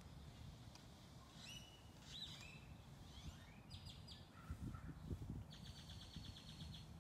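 Faint birdsong: a few short high chirps and whistles, then a rapid trill near the end, over a low outdoor rumble.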